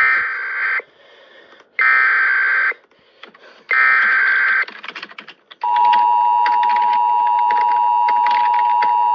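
Emergency Alert System broadcast tones: three short SAME header data bursts about a second apart, then from about five and a half seconds in the steady two-tone EAS attention signal (853 and 960 Hz), with scattered clicks between and under them. Together they announce a Child Abduction Emergency (Amber Alert) about to be read.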